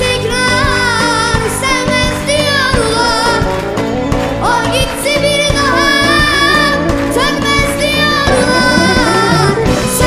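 Music: a solo voice singing long, ornamented melodic lines that waver and bend in pitch, over steady instrumental accompaniment.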